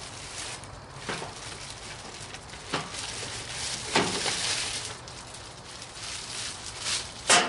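Rustling and scraping of packaging and parts being handled as an electric pressure washer is unpacked, in several short swishes with a sharper one near the end.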